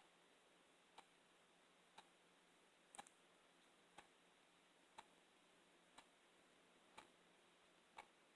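Near silence with a clock ticking faintly, once a second.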